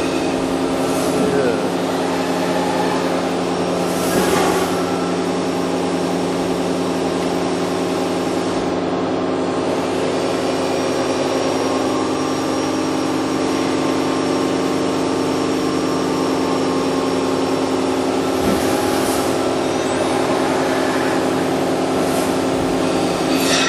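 Toshiba MPF-2114C bridge-type machining center running with a steady multi-tone hum. The hum is broken by several short hisses spread through the stretch.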